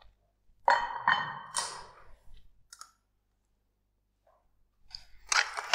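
Clicks and knocks of demonstration equipment being handled and set down on a wooden desk. They come in two spells, with a near-silent gap of a couple of seconds between them.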